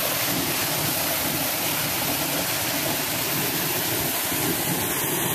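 Water leaking from a water tower, gushing steadily out of a pipe down the tower's side and hitting the ground with full force: a continuous heavy rush.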